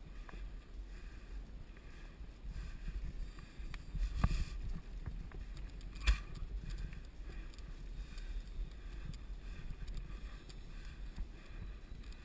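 Mountain bike riding over a dirt forest trail: a steady rumble of wind on the camera microphone and tyre noise, with scattered clicks and rattles from the bike over the ground and one sharp knock about six seconds in.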